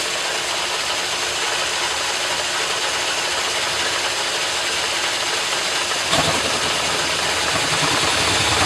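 Metal lathe running and cutting a steel bar, a steady dense mechanical noise with a faint high whine, growing heavier in the low end about six seconds in.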